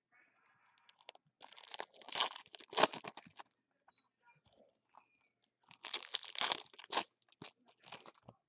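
Foil wrappers of Bowman's Best trading-card packs crinkling and crackling as they are handled, in two spells a few seconds apart, with small rustles and ticks between.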